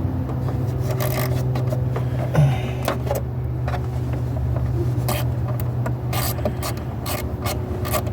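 Hand ratchet and socket backing out an engine cover bolt: irregular metallic clicks and scrapes over a steady low hum.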